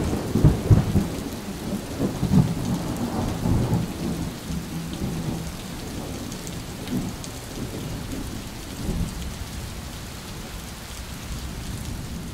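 Thunder rumbling and slowly dying away over falling rain, with irregular swells of rumble in the first few seconds.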